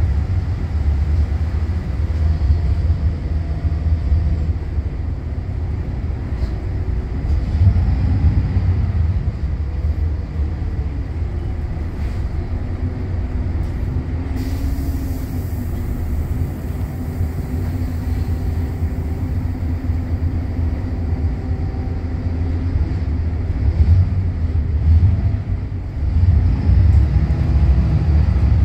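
Volvo B8RLE bus's diesel engine and drivetrain, heard from inside the passenger cabin while driving, a deep steady drone with the engine note rising as it pulls, about eight seconds in and again near the end. A brief hiss comes about halfway through.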